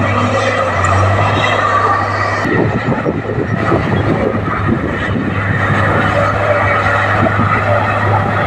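Komatsu D58P bulldozer's diesel engine running steadily under load. Dense clattering joins in about two and a half seconds in.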